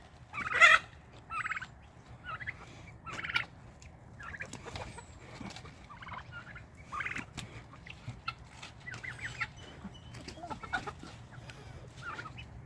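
Farmyard poultry flock calling: a scattering of short squawks and raspy, buzzy calls, several a second, with the loudest about half a second in.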